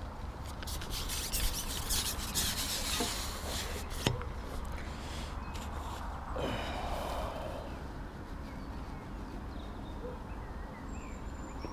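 Rustling and clicking of close handling in the first few seconds, over a steady low wind rumble, with faint bird calls near the end.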